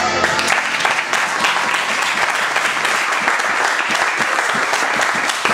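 A small crowd of guests applauding and clapping as the song ends; the music stops just after the start.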